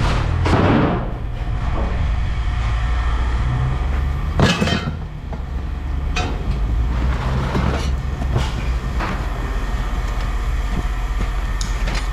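Scrap metal being handled: short metal clanks and scrapes every second or two over a steady low machine drone.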